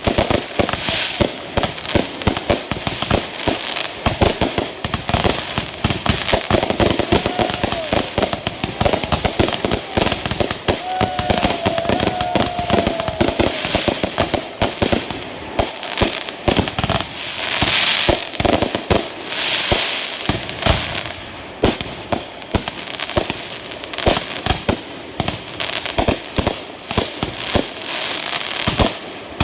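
Fireworks going off in a rapid, unbroken run of bangs and crackling, with thicker bursts of crackle past the middle.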